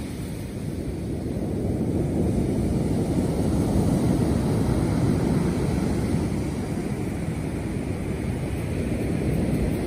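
Heavy surf breaking on a shingle beach: a steady low rush that swells about two seconds in, eases, and builds again near the end, with wind buffeting the microphone.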